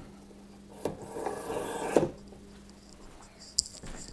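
Metal telescoping whip antenna being pulled out to full length. A click, then about a second of sections sliding with a scraping rasp, ending in a sharp click as the last section stops at full extension. A few lighter clicks follow.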